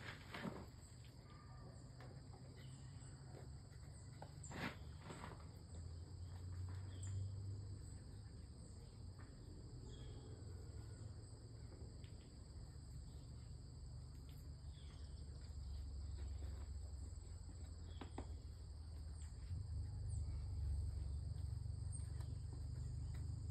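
Hands working soil around basil seedlings in a wooden planter box: a few scattered soft knocks and rustles. Beneath them run a faint steady high chirring and a low rumble.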